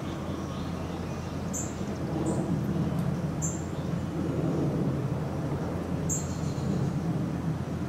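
Honeybees buzzing around a passion flower: a steady low hum that swells and fades. A few short, high bird chirps come over it.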